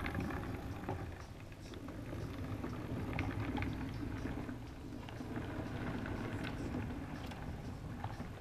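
Model train running along the layout's track: a steady low rumble with scattered small clicks from the wheels and rail joints.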